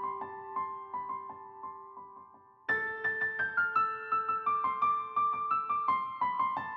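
Background keyboard music: a steady run of quick notes, about four a second, over a held low note. It fades, then cuts back in suddenly and louder about two and a half seconds in.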